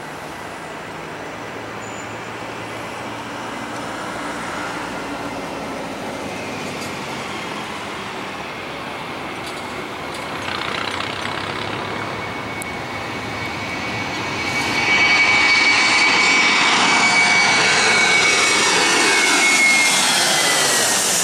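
Airbus A319 jet airliner taking off: the engine noise grows steadily louder through the takeoff roll and climb-out, then jumps in loudness about three quarters of the way through as the jet passes low overhead, with a high whine that slides down in pitch as it goes by.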